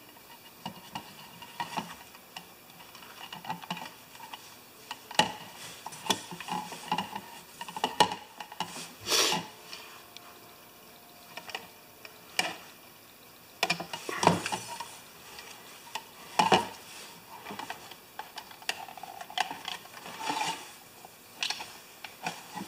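Hands wrapping tape around lamp wiring and handling the lamp's panel and frame on a workbench: irregular rustling, light clicks and taps, with several louder scrapes and handling knocks.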